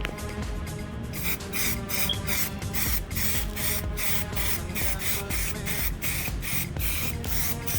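Background music with a fast, even beat of hissing hi-hat or shaker strokes, about three a second, over sustained tones.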